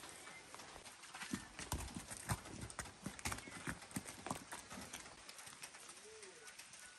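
Hooves of a laden pack animal walking on a muddy, stony path: an uneven clip-clop of knocks, thickest from about a second in until about five seconds in.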